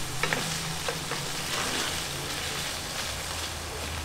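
Minced beef frying and sizzling in a stainless steel pan on a wood-fired kitchen stove, stirred with a wooden spoon that gives a few light scrapes and ticks against the pan in the first second or so.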